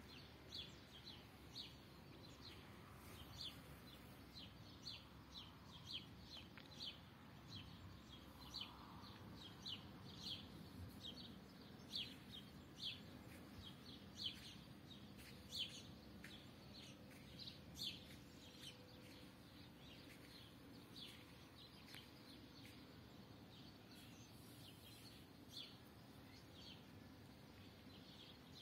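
A small bird chirping over and over outdoors: short, high chirps a few times a second, louder in the middle stretch, over faint low background noise.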